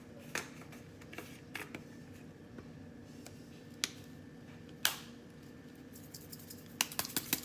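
Sharp clicks and light taps of spice containers being handled, tapped and opened as dry seasonings go into a soup pot. The loudest click comes about five seconds in, with a quick run of clicks near the end.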